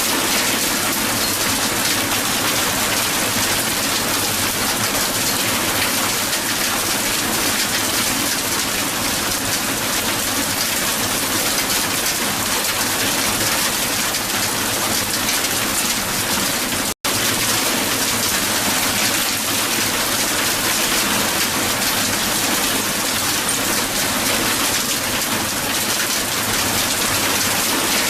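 Hail pelting down hard on the ground: a dense, steady clatter of countless small ice impacts. It cuts out for a split second about seventeen seconds in.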